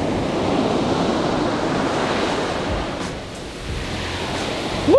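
Ocean surf washing onto the beach: a steady rush of breaking waves, with some wind on the microphone. It eases briefly about three seconds in.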